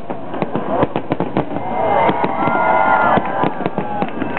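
Fireworks crackling and popping in a dense, rapid string of many small bangs.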